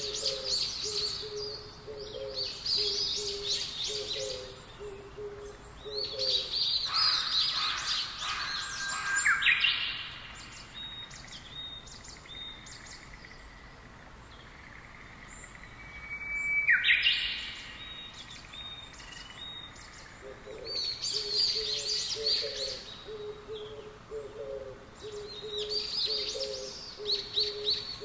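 Forest songbirds chirping and singing in repeated bursts of quick high notes and trills, with a few short falling whistles. Under them, a low note repeats about twice a second for the first few seconds, stops, and comes back about two-thirds of the way through.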